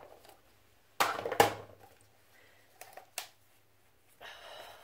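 Hard plastic makeup containers and compacts clattering and clicking as they are handled. A loud cluster of knocks comes about a second in and two sharper clicks follow, with a brief rustle near the end.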